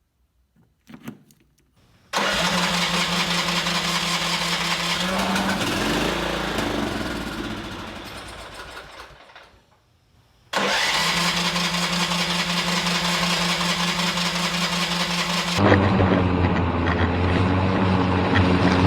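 Craftsman riding mower engine, primed with fuel poured down the carburettor throat, catches and runs steadily, then dies away over a few seconds. It starts and runs again, its note shifting lower near the end. The engine fires on the priming fuel but will not keep running, which the owner puts down to a clogged fuel filter starving the carburettor of fuel.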